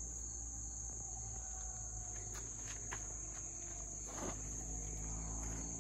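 A steady, high-pitched chorus of insects singing without a break, with a few faint ticks and rustles over it.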